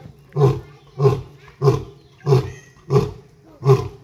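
Male lion roaring in a steady series of short, deep grunting calls, six in a row, about one every 0.6 s.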